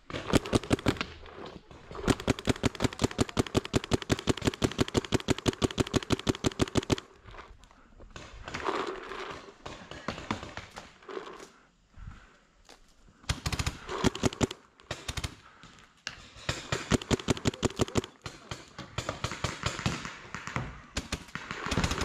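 Paintball marker firing in long strings of rapid, evenly spaced pops. The first string lasts about seven seconds; after a pause, shorter strings follow.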